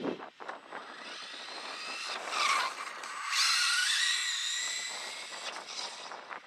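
Traxxas Rustler VXL RC truck's brushless electric motor whining, rising and falling in pitch as it speeds up and slows, loudest a few seconds in, with light tyre noise from the street tires.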